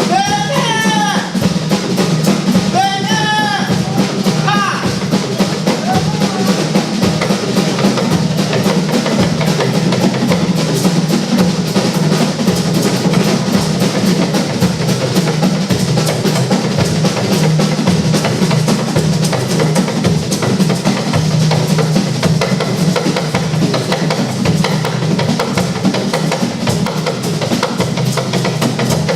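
Music driven by a busy drum and percussion beat. A voice sings a few short phrases in the first few seconds, then the drums and percussion carry on alone.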